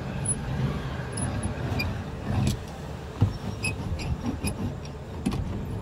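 Foil-faced butyl sound-damping sheet being pressed and rolled down onto a car's bare steel roof panel, giving irregular clicks and taps over a low rumble of handling noise.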